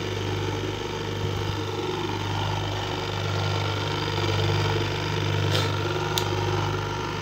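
Bare washing machine wash motor running steadily on the bench under the timer, giving a low, even electrical hum. Two light clicks come near the end.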